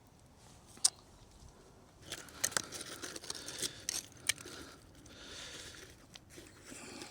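Crunching and scraping of soil and broken clay being dug at by hand, with scattered sharp clicks of fragments knocking together; it starts about two seconds in after a single click.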